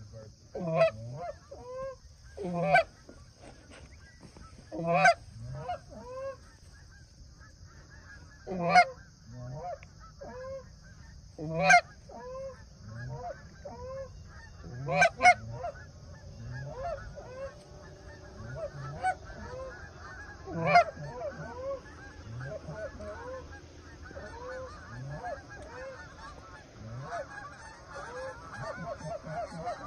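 Canada geese honking and clucking from a flock in flight, the calls growing thicker in the second half. Louder, sharper single honks ring out every few seconds over the first twenty seconds or so.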